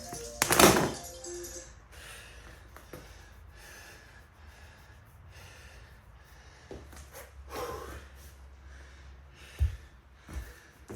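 A loud clatter about half a second in while music fades out, then a person breathing hard between exercises, in short puffs every second or two, with two dull thuds near the end.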